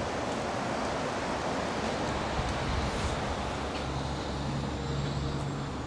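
Mercedes-AMG S65's twin-turbo V12 engine idling steadily just after start-up.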